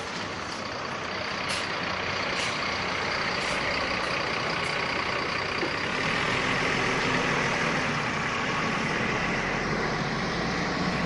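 A large bus running past with steady engine and road noise, with a few short air hisses in the first five seconds.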